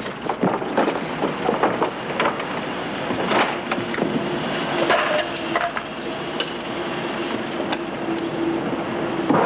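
Knocks and scuffs of people scrambling over wooden crates and climbing in through a window. A steady low hum comes in about three and a half seconds in and holds under the knocks.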